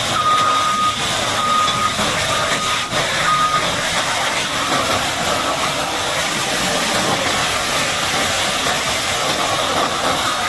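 Steady hiss of a high-pressure water spray washing heavy equipment, with a vehicle's reversing alarm beeping four times in the first few seconds.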